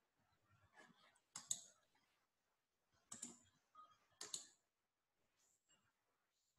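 A few sharp computer mouse clicks with near silence between: a quick pair about a second and a half in, then single clicks at about three and four seconds.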